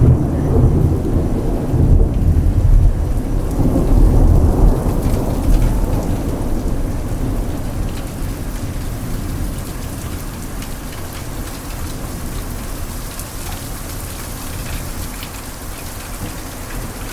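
Thunderstorm: a long roll of thunder rumbling through the first five or six seconds and dying away, over steady rain that carries on after it.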